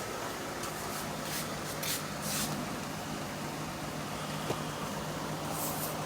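A steady low hum and hiss, with a few brief rustles and one sharp click about four and a half seconds in.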